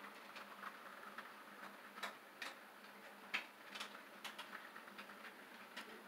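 Faint, irregular clicking of an HO scale model train's wheels running slowly over the rail joints, a scattered series of sharp ticks with the loudest about three seconds in.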